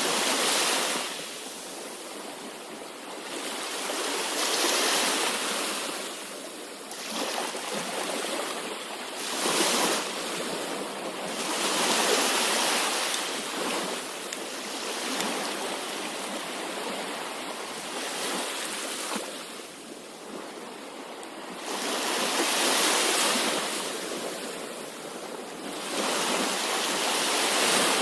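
Sea waves breaking and washing up a shore, the surf swelling and falling away in surges every four to five seconds.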